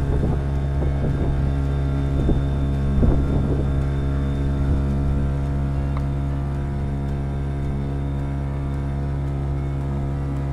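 Outboard motor running steadily at cruising speed, driving a loaded canoe across open water.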